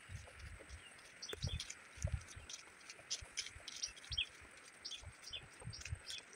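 Small birds chirping in many short, high calls over a steady background hiss, with irregular low thuds of footsteps on a sandy dirt path.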